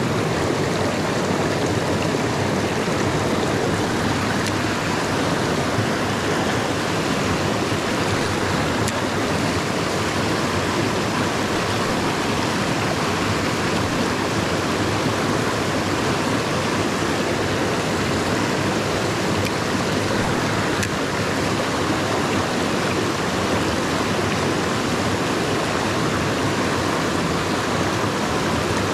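Mountain creek flowing, a steady, even rush of water.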